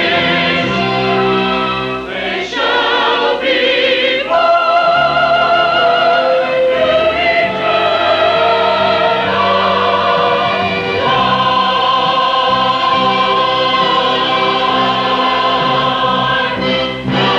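Church chancel choir singing in parts, holding chords with vibrato, with a short break about two seconds in and again near the end. The sound comes from an old VHS recording and stops short of the highest treble.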